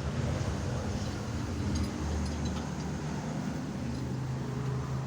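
An engine running steadily with a low hum, with a few faint ticks about two seconds in.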